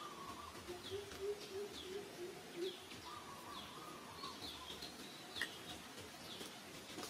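Background birds calling: short high falling chirps repeated about once or twice a second, with a low run of quick notes in the first few seconds.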